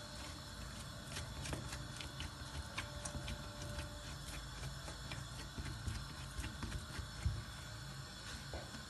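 Hands kneading a soft egg dough on a granite countertop: faint, irregular pressing, slapping and tapping sounds with soft thumps, one a little louder about seven seconds in.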